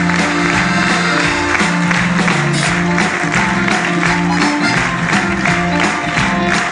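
A live stage band playing an upbeat number with a steady drum beat and a moving bass line.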